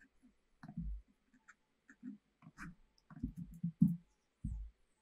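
Computer mouse clicking: a scatter of faint, irregular clicks and soft knocks, most of them bunched together about three to four seconds in.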